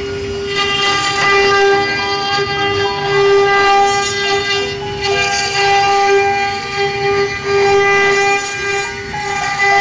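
Water-cooled 2.2 kW spindle of a wood CNC router whining at a steady pitch as the bit cuts into a wooden board. Higher tones above it shift in pitch every few seconds as the machine's stepper-driven axes change speed and direction.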